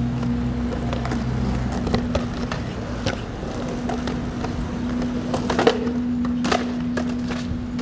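Skateboard wheels rolling on concrete, a steady low rumble with a few sharp clacks of board and trucks, the loudest a little past halfway. A steady low hum runs underneath.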